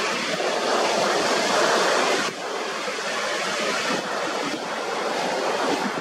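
Sea surf washing, a steady rushing hiss that drops a little just over two seconds in.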